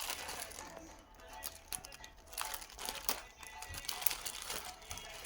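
Small plastic-bagged phone parts crinkling and clicking as they are handled, in short scattered rustles, with faint steady tones underneath.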